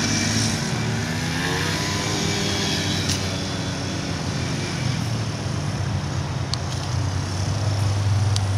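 Quad bike engine running at a steady pitch, with a few faint ticks.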